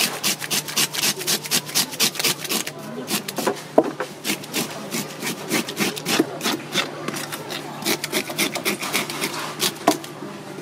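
A wooden-handled fish scaler scraping scales off a whole Neptune grouper in quick, rasping strokes, several a second, with short pauses and one sharp knock about four seconds in.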